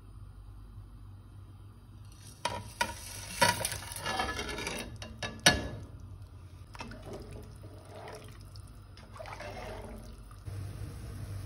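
Whole spices, an onion and garlic tipped off a plate into a pot of raw chicken, several sharp knocks and rattles against the pan a few seconds in. Then water poured into the pot and stirred with a spatula, and a steady low hum starts near the end.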